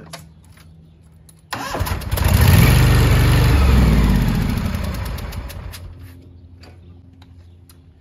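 Power King garden tractor's engine being cranked by its electric starter on a jump starter: a sudden, loud cranking with a regular pulse, beginning about a second and a half in, that slows and fades away over a few seconds without the engine catching.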